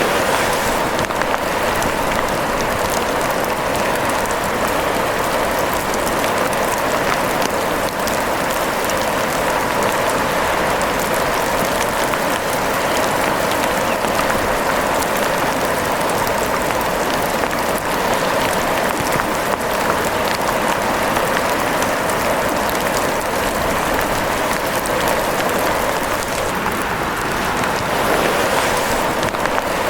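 Rain falling steadily, a dense, even patter with no letup.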